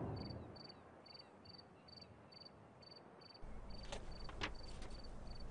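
Crickets chirping in a regular run of short high chirps, about two a second. The tail of orchestral music dies away at the start, and a faint low background hum comes in about three and a half seconds in.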